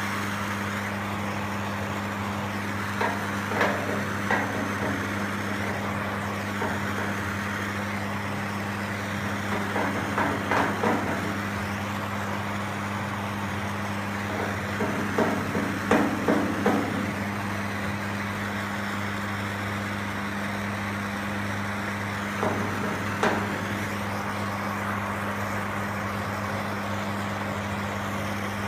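Paddle strokes on soft body lead over a car's leaded seam, heard as four short bunches of scraping and tapping about 3, 10, 16 and 23 seconds in, over a steady hum and hiss.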